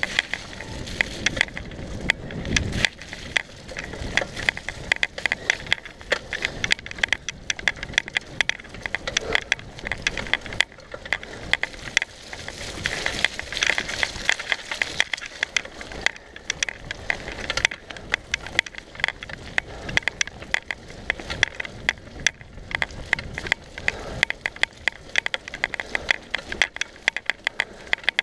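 Mountain bike rattling down a rough dirt trail: a continuous dense clatter of clicks and knocks from the bike and its tyres over the ground.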